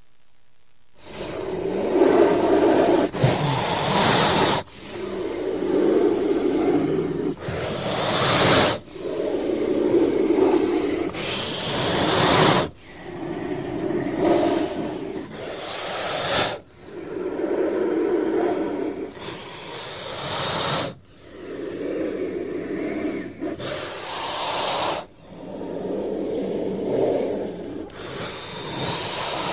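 A cobra hissing over and over: about nine long, breathy hisses in a row, each two to four seconds, with a low rasp under them, starting about a second in.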